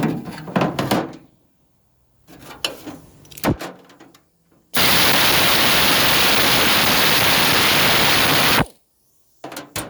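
A few knocks and clinks, then a loud steady hiss for about four seconds that cuts off sharply, followed by two more knocks.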